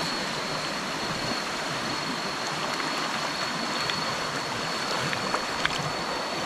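Stream water running and rushing in a steady, even wash, with a thin, steady high-pitched tone over it throughout. A few faint ticks come in the second half.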